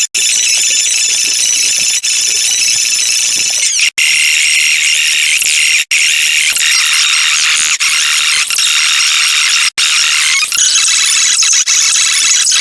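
Thin, high-pitched electronic background music with almost no bass, cut by brief silent gaps about four times.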